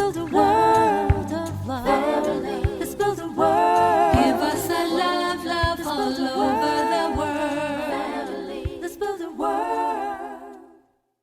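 The end of a song: several voices singing in harmony over a low beat, fading out to silence about ten and a half seconds in.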